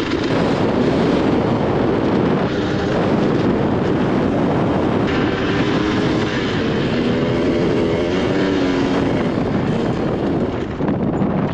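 Dirt bike engine running under throttle while riding, its pitch rising and falling as the rider works the throttle.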